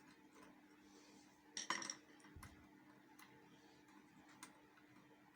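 Faint metal clicks of a screwdriver working a stubborn feed-dog screw loose on an industrial sewing machine, with one louder clink about two seconds in and a few light ticks after it.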